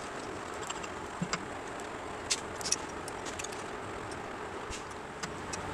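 A few light, sharp metal clicks and clinks of a wheel bearing and a long metal tool being handled at the hub of a spoked motorcycle wheel, over a steady background hum.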